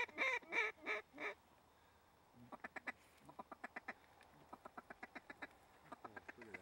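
Loud honking waterfowl calls in the first second or so, then several quick runs of short duck quacks.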